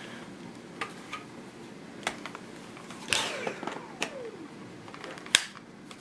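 Plastic clicks and knocks of Dyson V8 cordless vacuum attachments being handled as the extension wand is taken off and the dusting brush fitted. A scraping slide comes about three seconds in, and one sharp click comes near the end.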